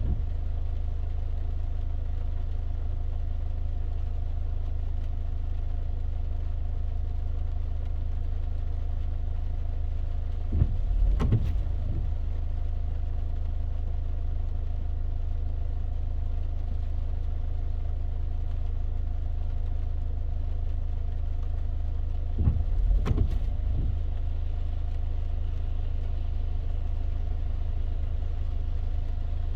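Car interior while driving in rain: a steady low engine and road hum with a faint hiss of rain. Twice, about twelve seconds apart, there is a brief sweeping sound lasting about a second and a half.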